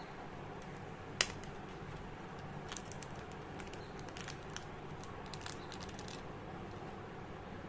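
A small clear plastic zip-lock bag being handled and opened by hand: one sharp tap about a second in, then scattered light crinkles and clicks of thin plastic. A faint steady background noise lies under it all.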